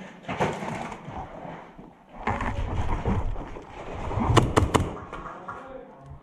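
Footsteps scuffing and crunching over debris, then three sharp airsoft pistol shots in quick succession about two thirds of the way in.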